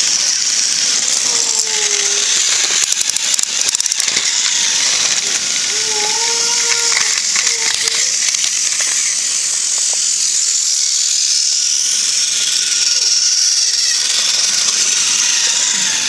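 Battery-powered TrackMaster toy train engines running on plastic track: a steady, high-pitched motor and gear whir with plastic rattling, and a quick run of clicks about three to four seconds in.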